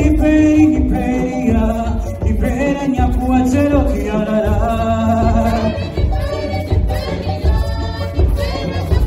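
Background music: a song with several singing voices over a steady low beat.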